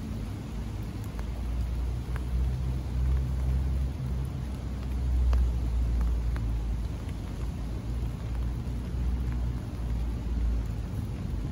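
Low rumble of distant thunder, swelling and fading over several seconds, with scattered raindrops ticking on an umbrella held over the microphone.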